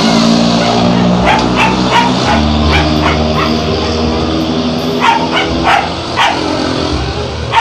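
Dog barking in short barks, a few around one to two seconds in and another run around five to six seconds in.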